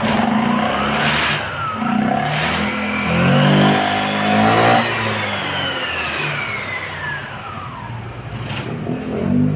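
Honda Click 125 V3's single-cylinder engine revved with the CVT cover off. The engine rises in pitch and settles back, and the exposed drive belt and pulleys whine, gliding up and then down as the variator shifts, during a run-up test after CVT cleaning.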